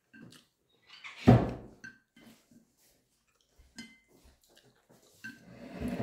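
Wooden chopsticks clicking and scraping on a ceramic plate, light scattered taps with quiet gaps, and one heavy thump against the table about a second in.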